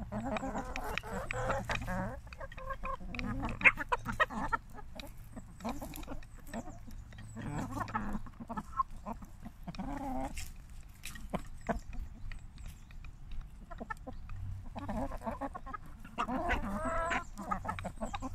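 A flock of domestic hens clucking in low, repeated bursts as they feed together, with sharp clicks of beaks pecking at a bowl.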